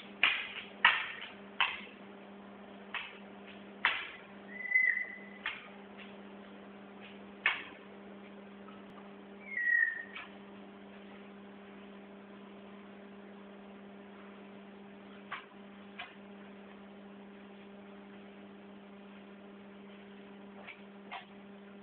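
A Moluccan cockatoo walking on a hard wooden floor: scattered taps, mostly in the first few seconds, and two short whistled notes, about five and ten seconds in, the second dipping slightly in pitch. A steady electrical hum lies underneath.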